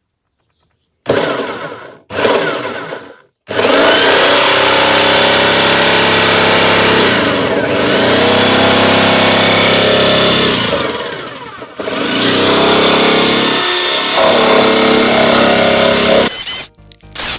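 Corded jigsaw fitted with a wood blade, cutting a speaker hole through a plastic dashboard. It starts with two short bursts of the trigger, then runs steadily through the cut, dipping briefly twice, and stops and starts again near the end.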